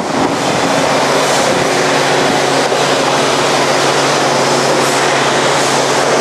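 Forrest Manufacturing Model 236 vertical-blade bandsaw running, a steady loud motor hum and blade whir.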